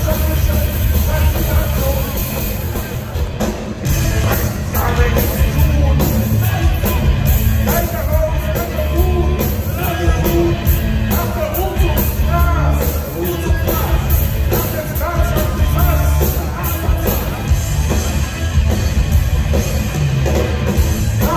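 A German punk rock band playing live, with a lead vocal over electric guitars, bass and drums. It is heard from the audience in a large hall.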